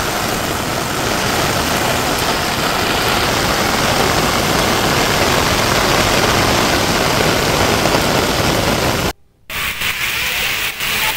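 Heavy rain pouring down, a steady hiss, with a brief cut-out about nine seconds in.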